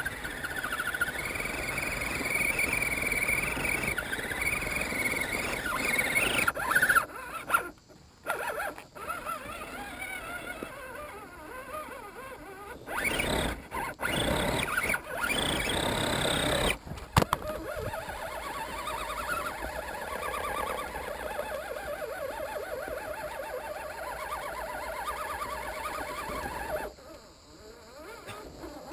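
Electric motor and gear drivetrain of a 1/10 Axial SCX10 scale crawler whining as it crawls over rock and dirt, heard from a camera mounted on the truck. The pitch rises and falls with the throttle, and it cuts out briefly several times.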